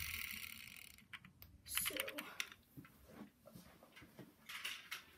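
A die-cast toy car being handled and moved off a plastic carry case: faint, scattered clicks and taps after a soft rustle that fades over the first second.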